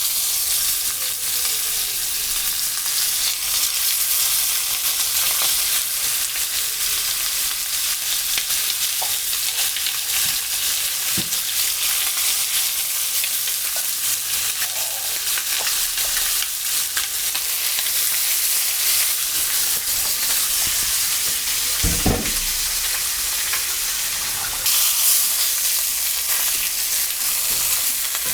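Chicken thighs searing skin side down in hot oil in a frying pan: a steady, loud sizzle. There is a brief low knock about three-quarters of the way through, and the sizzle grows louder shortly after.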